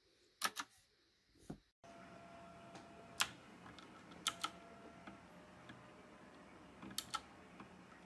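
Blue-switch mechanical keyboard with round typewriter-style keycaps, clicking under a few scattered keystrokes, some single and some in quick pairs. A steady low background hiss comes in about two seconds in.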